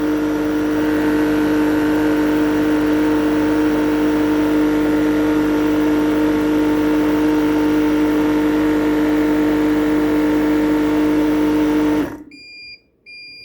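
Refrigerant recovery machine's compressor running steadily with a loud, even hum while it pumps liquid refrigerant into the system, then shutting off abruptly about a second before the end, followed by short electronic beeps.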